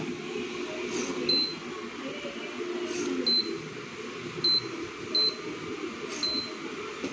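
Induction cooktop's touch control panel beeping as its buttons are pressed to turn the power down: five short, high beeps spaced about a second apart, over a steady low background hum.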